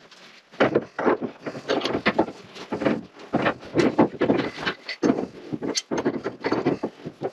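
Irregular knocking, rattling and scraping as hands and a tool work on the faucet's threaded nipple and fittings under a kitchen sink, trying to get it off.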